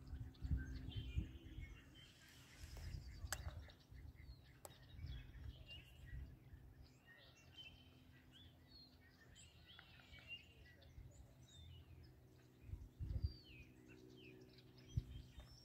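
Several birds chirping and calling at intervals. Under them are a faint steady low hum and a few low bumps near the start and near the end.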